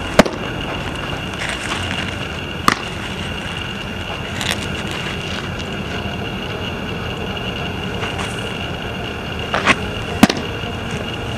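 Baseballs smacking into a catcher's mitt: a few sharp pops, the loudest just after the start and another near the end, over a steady outdoor hiss with a faint high whine.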